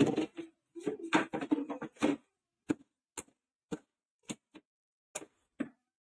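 Plastic top cover of a canister vacuum cleaner being fitted and pressed onto its body: a quick run of plastic clatter and knocks, then a string of separate sharp clicks about half a second apart as the cover is pushed down and seated.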